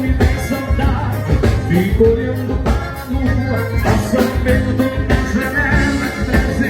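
Gaúcho dance band playing live, with pitched melody lines over a steady drum beat.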